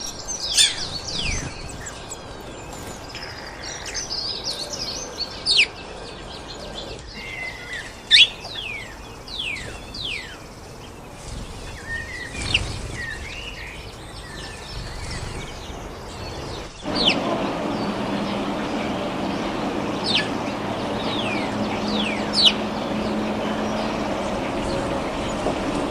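Small birds chirping: many short, quick chirps that drop sharply in pitch, some in rapid runs. About 17 seconds in, a louder steady background noise with a low hum sets in under the continuing chirps.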